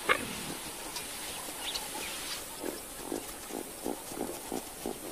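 Short animal calls repeated quickly, about three a second, through the second half, after a sharp click right at the start.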